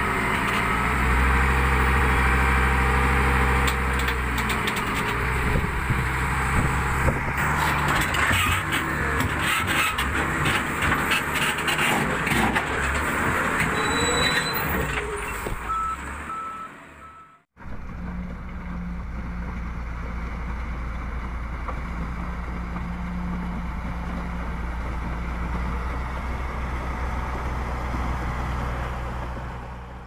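SEM 656D wheel loader's diesel engine running under load, with rock knocking and clattering against the bucket midway and a reversing alarm beeping briefly. The sound cuts out for a moment, then the engine running resumes steadily and fades out near the end.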